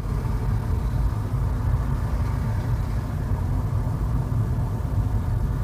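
A car driving along a highway, heard from inside the cabin: a steady low rumble of road and engine noise.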